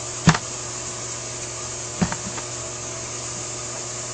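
A sharp knock, then a softer knock and a light click about two seconds later, from small carburetor linkage parts being handled and fitted during assembly. A steady hum and hiss run underneath.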